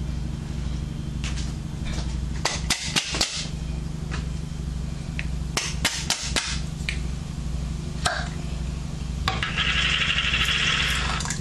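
A glass jar of pasta sauce being opened and handled, with sharp clicks and knocks, then thick sauce poured from the jar into a pot for about two seconds near the end, over a steady low hum.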